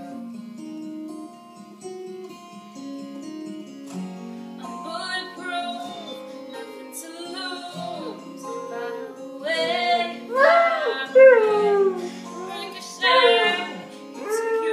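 A girl singing over a plucked guitar accompaniment. At first only the guitar is heard; her voice comes in about four seconds in and grows louder in the second half, with long sliding notes.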